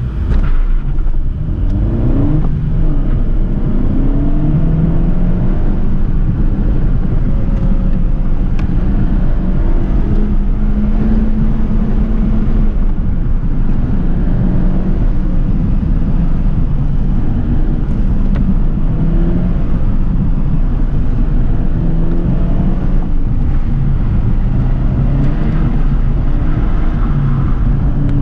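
Honda Civic's engine revving up and down repeatedly as the car is driven hard through an autocross course, heard from inside the cabin over steady road and wind noise.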